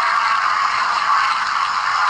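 Steady rustling hiss coming through a small camera speaker, thin and tinny with no low end.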